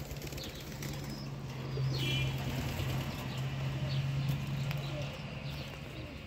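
Pigeons in a loft: wings flapping and brief high chirps from the birds, over a steady low hum. The flapping and rustle swell in the middle and die down toward the end.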